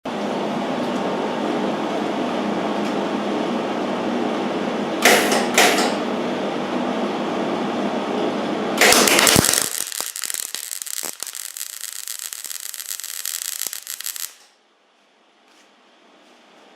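Millermatic 90 wire-feed welder's arc crackling and buzzing against the steel of a snowblower impeller housing, with two sharp pops about five seconds in. The arc stops about fourteen seconds in.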